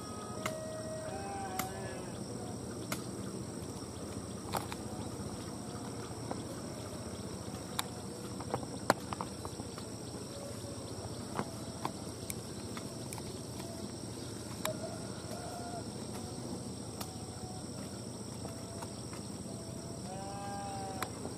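Distant rural village ambience: a steady background hiss with a faint high hum, scattered small clicks, and a few short animal calls, a couple near the start, one in the middle and one near the end.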